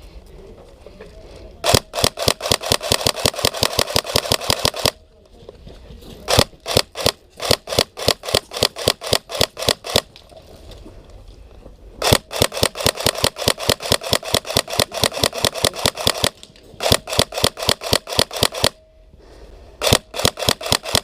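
Airsoft rifle firing on full auto: five long strings of rapid, evenly spaced shots, each lasting about two to four seconds, with short pauses between.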